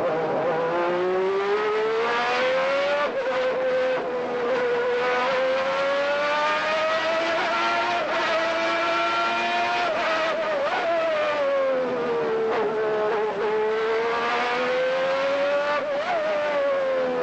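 Honda V12 of a 1991 McLaren MP4/6 Formula One car, heard onboard at racing speed. Its pitch climbs, steps at an upshift about three seconds in and rises slowly to a high note, then falls away under braking and downshifts a little after halfway. It climbs again out of the corner and drops once more near the end.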